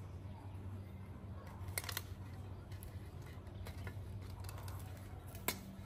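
Light knocks and clicks of dishes and a wicker basket being handled on a cloth-covered table, a few about two seconds in and one sharper click near the end, over a steady low hum.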